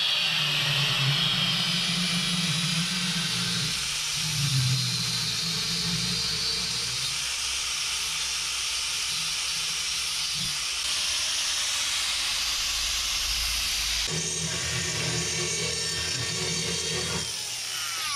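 Electric angle grinder with an abrasive disc grinding slots into a steel motorcycle rear sprocket: a steady metallic hiss of disc on steel over the grinder motor's hum, winding down near the end.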